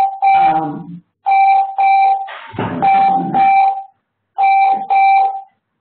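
Electronic ringing tone: a steady, high beep sounding in pairs, about one pair every second and a half, four pairs in all.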